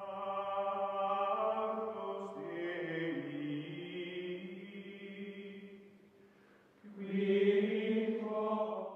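Choral chant music: voices holding long notes that step to new pitches. It fades out about six seconds in, and a new held chord comes in a second later and stops abruptly.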